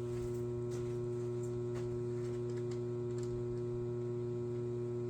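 Steady electrical mains hum, a low buzz held at one pitch, with a few faint ticks.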